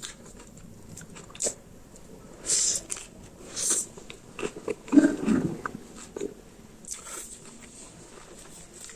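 A person chewing and eating food close to the microphone: scattered wet mouth clicks and smacks, with a few short hissing sounds.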